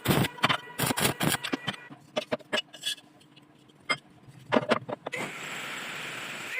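A run of sharp knocks and clicks, fast at first and then sparser, like metal pieces being handled and tapped. Near the end a steady hiss starts and cuts off suddenly.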